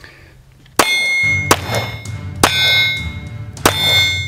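Glock 17 9mm pistol fired four times, about a second apart, starting just under a second in. Each shot is followed by the steady ring of an AR-500 steel target being hit.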